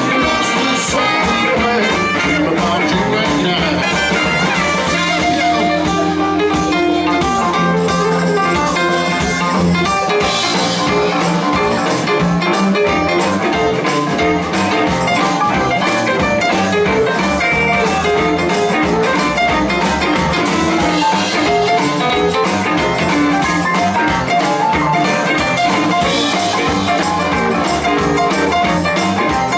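Live blues band music: an up-tempo boogie number with guitar playing.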